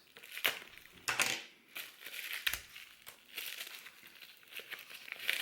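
Packaging crinkling and rustling as it is handled and opened by hand, in irregular bursts with a few sharp clicks.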